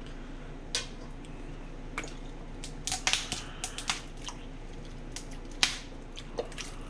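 Scattered light clicks and taps from a plastic lemon-juice squeeze bottle being tipped and shaken over a pot as the juice is poured in. The clicks cluster about three seconds in, and the loudest comes about five and a half seconds in, over a steady low hum.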